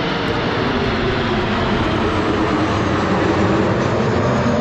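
Kawasaki T-4 twin-turbofan jet trainers flying past in formation: a loud, steady jet rush that grows slightly louder.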